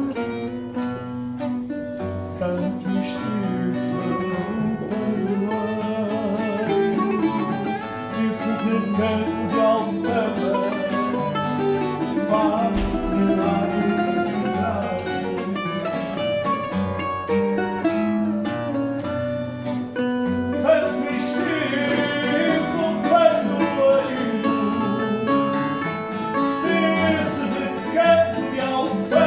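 Live fado: a man singing with vibrato over plucked guitar accompaniment, typically the Portuguese guitar and classical guitar.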